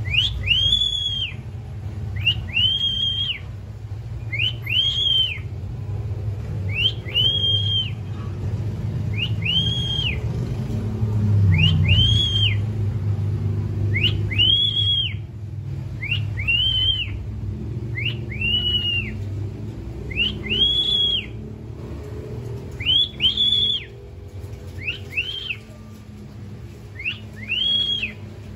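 Cockatiel whistling a repeated song: clear arched notes that each rise and fall, about one every one and a half to two seconds, some in quick pairs.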